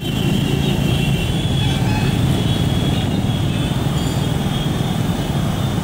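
Steady rumble of road traffic, with a faint high wavering whine on top.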